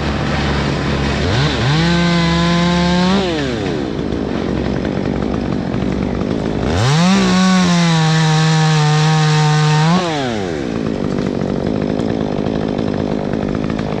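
Chainsaw idling and run up to full throttle twice as it cuts: a short run about a second and a half in, then a longer one of about three seconds starting near seven seconds, its pitch sagging slightly while held, each dropping back to idle.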